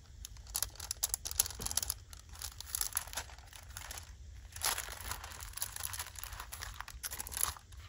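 Paper pages of a handmade envelope journal rustling and crinkling as it is handled and flipped through, a run of irregular soft crackles.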